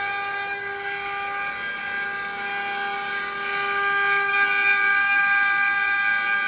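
Multi-head CNC wood router running, its row of spindle motors giving a steady high-pitched whine over the hiss of the bits carving wooden spindles on the rotary axes.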